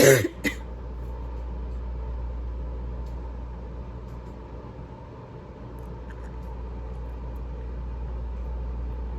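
A person's short, loud burst of breath and voice right at the start, with a smaller second burst about half a second later, from a woman with a cold. After it there is only a steady low hum.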